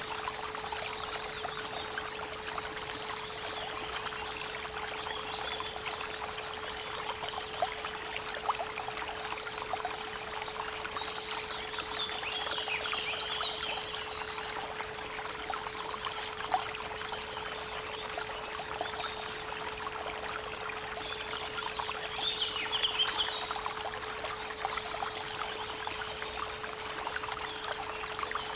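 Creek water running steadily, with a steady 432 Hz pure tone held underneath. Birds chirp in short high bursts near the start, again a third of the way in, and near the three-quarter mark.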